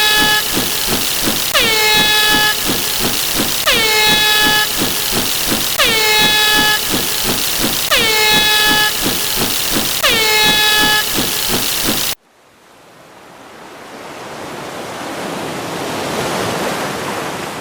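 A dense stack of layered sound effects. A horn-like blast, dipping in pitch at its start and then holding, repeats about every two seconds over a noisy layer of fast clicks. The whole stack cuts off abruptly about twelve seconds in, and a hiss then swells up and fades.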